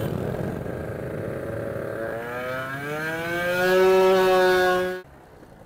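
Small motorcycle engine accelerating hard from the rider's seat, with wind noise. About halfway through, its pitch climbs steadily for a couple of seconds, then holds high and loud before cutting off suddenly near the end.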